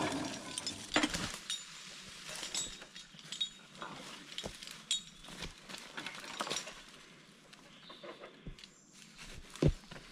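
Steel skidding chains clinking and jangling as they are carried and handled, with irregular footsteps and rustling through dry leaf litter and branches, and a louder knock near the end.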